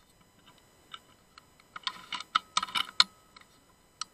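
An irregular run of sharp clicks and taps, a few single ones and then a quick cluster in the middle.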